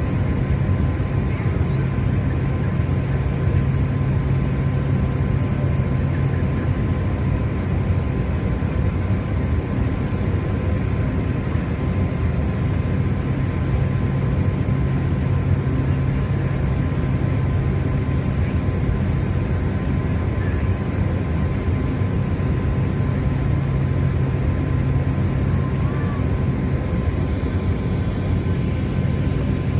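Steady, unchanging jet aircraft noise: a constant drone with a strong low hum and a thin steady whine.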